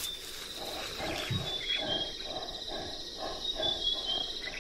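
An animal calling in an evenly spaced series of about nine short notes, two or three a second, over a steady high insect trill.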